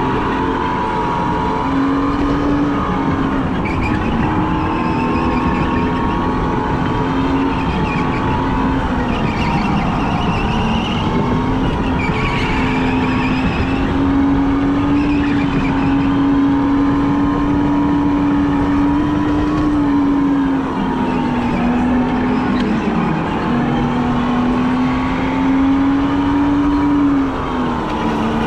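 Go-kart motor running at speed, heard from onboard over tyre and track noise: a steady hum whose pitch dips briefly a few times and then recovers.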